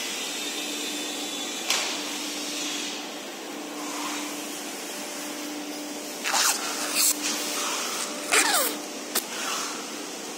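Steady workshop machine hum and hiss, with several short crackling bursts of clear plastic film and the PVC shutter being handled, the loudest cluster about six to nine seconds in.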